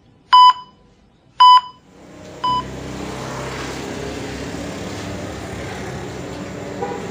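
Electronic test-tone beeps from a colour-bar 'no signal' glitch effect: two long beeps about a second apart, then a shorter, fainter third one. After that, a steady hiss of background noise with no speech.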